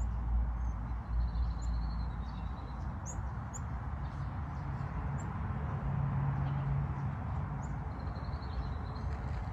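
Small birds chirping faintly outdoors, with two short trills, one early and one near the end, and scattered brief high notes, over a steady background rush and low rumble.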